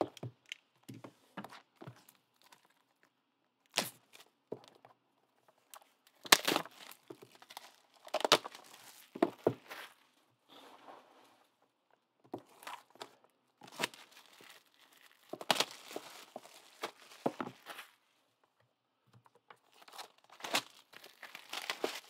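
Shrink-wrapped trading card boxes being handled: the plastic wrap crinkles and tears in irregular bursts, with a few light knocks as the card boxes are moved and set down.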